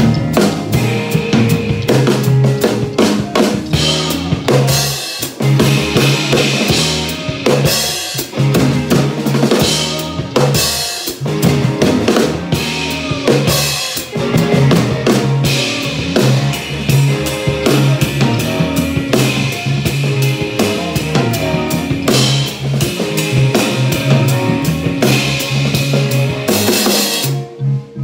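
Live rock band playing: a drum kit played hard with crashing cymbals, snare and bass drum, over electric guitar. Just before the end the drums and cymbals stop, leaving the guitar playing alone.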